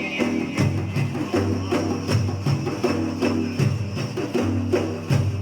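Instrumental break in an Iraqi religious praise song, with no singing: percussion strikes at a steady beat over a stepping bass line and a short repeating melody.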